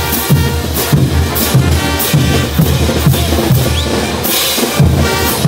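Bolivian street brass band playing a morenada: bass drums beating about twice a second with large hand cymbals crashing on the beats and brass sounding underneath. The drums drop out briefly shortly before the end, then come back in with a loud crash.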